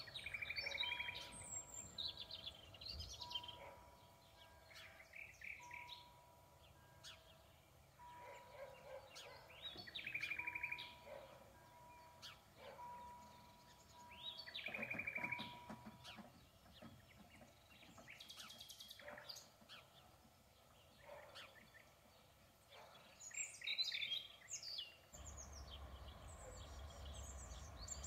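Songbirds singing with repeated chirps and trills over a level crossing's warning signal, an electronic tone pulsing about once a second while the barriers lower, which stops about 16 seconds in. About 25 seconds in, a low steady rumble begins.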